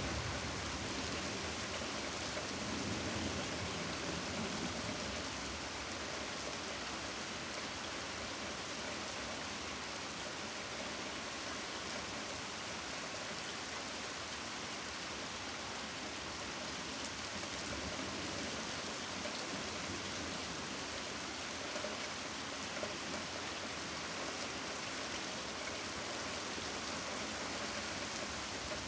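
Steady rain falling, an even hiss. A low rumble of thunder dies away over the first few seconds.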